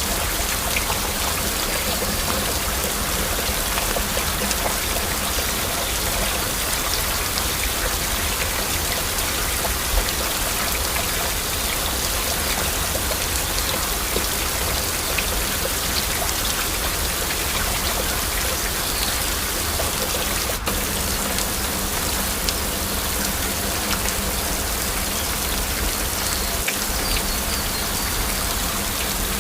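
Heavy rain falling steadily, with individual drops ticking through the wash of noise.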